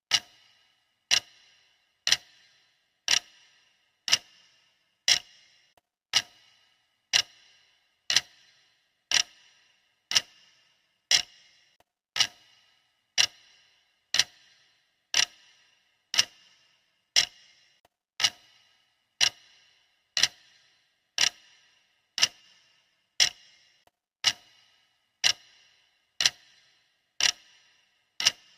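Clock ticking steadily, one sharp tick a second, each tick with a short bright ring.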